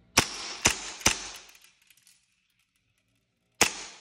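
HK USP airsoft pistol firing four shots: three in quick succession about half a second apart, then a single shot near the end. Each sharp crack trails off briefly.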